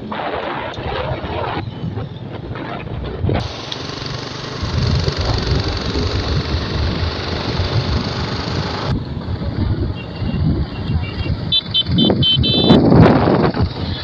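Motorcycle riding noise: the engine running under wind rush on the microphone, changing abruptly twice where clips are joined. Near the end comes a quick series of short high beeps.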